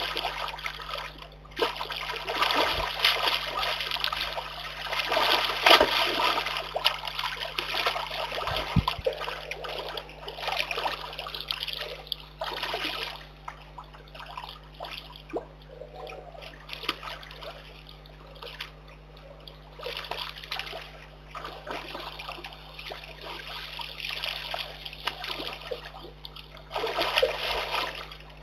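Brown bear cub splashing and sloshing about in a shallow muddy pond. The splashing comes in bursts, heaviest in the first few seconds and again near the end, and calmer in between.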